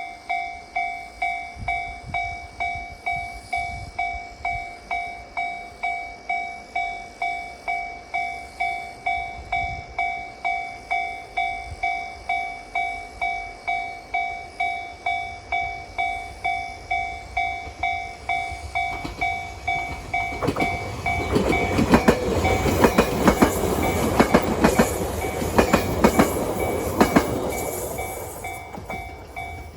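Japanese railway level-crossing warning bell ringing in a steady electronic clang, about one and a half strikes a second. About two-thirds through, a train passes over the crossing, its wheels clacking loudly over the rail joints, then fading near the end while the bell keeps ringing.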